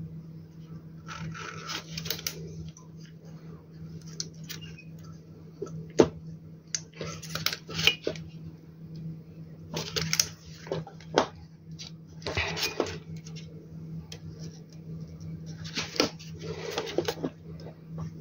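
Irregular clicks, scrapes and rustles of hands handling parts as a replacement MPPT circuit board is fitted into an inverter's case, with a few sharp knocks, over a steady low hum.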